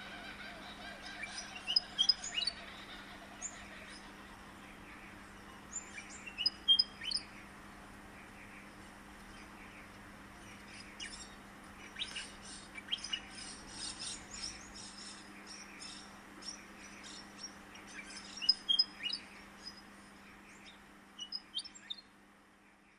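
Birds chirping and trilling in short scattered bursts, over a faint steady low hum, fading out near the end.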